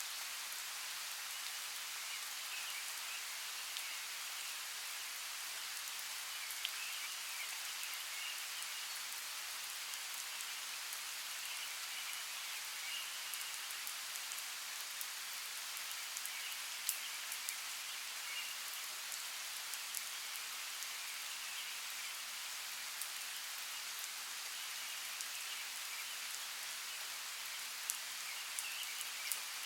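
Steady rainfall in a rainforest: an even hiss of rain with scattered sharper drops striking close by. A faint chirring comes and goes through it.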